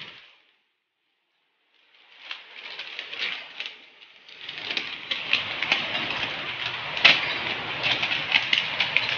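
A thin plastic bag rustling and crinkling in a hand as its contents are shaken out into a pot, with many sharp crackles over a steady bubbling of broth at a rolling boil. It starts after about two seconds of silence and gets louder and busier from about four seconds in.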